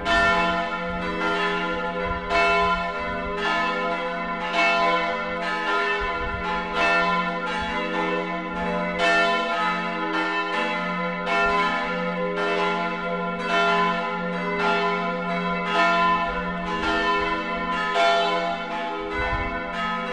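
Church bells pealing: several bells struck in a steady overlapping sequence, about three strikes every two seconds, each left ringing over a deep sustained hum.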